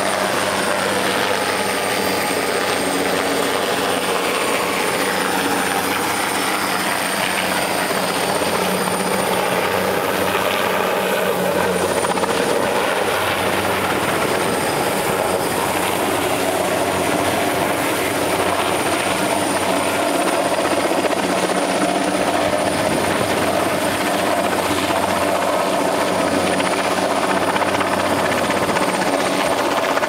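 Heavy-lift helicopter flying with a long cable line slung below, its rotor and engine noise running steadily with a thin high whine on top.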